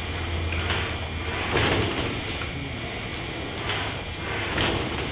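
Four-metre biped humanoid robot side-stepping, its leg joint drives whirring in several swells about a second apart over a steady low hum as it shifts its weight from foot to foot.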